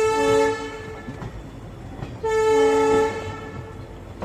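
Train horn sounding two blasts of about a second each, with a pause of about a second between them.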